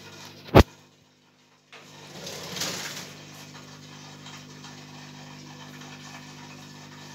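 Steady low hum of aquarium equipment, a filter or air pump motor. A single sharp click about half a second in is the loudest sound, followed by a brief dropout and then a rustling swell around two to three seconds in.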